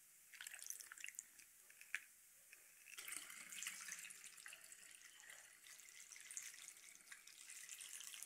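Clear liquid poured from a bottle through a plastic funnel into a ribbed bottle, faint: scattered splashes from about half a second in, then a steady trickle from about three seconds in.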